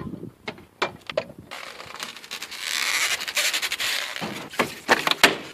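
Handling noise from a steel rolling toolbox and its loose hardware: scattered clicks and small knocks, then about two and a half seconds of steady rustling hiss, then more sharp knocks near the end.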